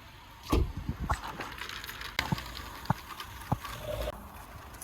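A series of separate sharp clicks and knocks, a few a second apart, with a short low thump near the end.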